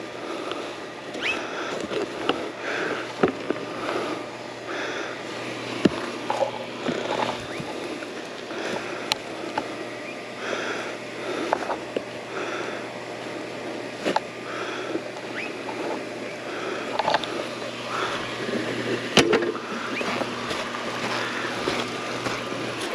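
Yamaha WR450F dirt bike's single-cylinder four-stroke engine running at a steady low engine speed, with frequent sharp knocks and rattles over the top.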